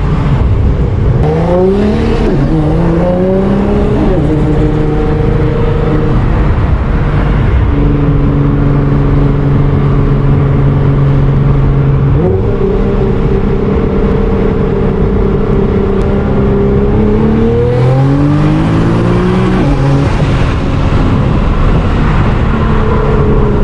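Nissan R35 GT-R's twin-turbo V6, fitted with an HKS GT1000 turbo kit, on light throttle: the revs rise in a few short pulls with drops at the gear changes, and hold steady while cruising in between.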